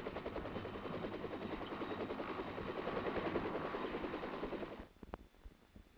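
Helicopter in flight, its rotor making a fast, even chop that stops abruptly almost five seconds in.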